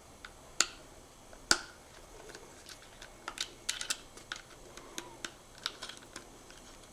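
Small metal parts clicking and tapping as the optical drive's mounting bracket is handled and fitted onto a laptop hard drive caddy: two sharper clicks early, then a scatter of light ticks.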